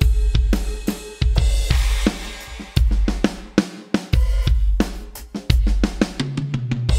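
Alesis electronic drum kit played in a busy prog-rock pattern: heavy bass drum hits with a long low boom, snare and tom strokes, and cymbal crashes, with a wash of crash cymbal from about a second in.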